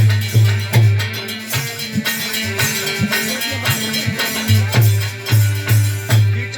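Instrumental music interlude between sung verses: a deep drumbeat about two to three times a second with a shaker-like rattle over held steady notes; the beat thins out for a few seconds in the middle.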